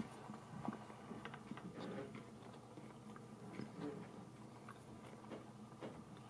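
Faint, scattered light clicks and crackles of fingers handling a small cracked eggshell, emptying the egg into a tiny saucepan, over a low steady hum.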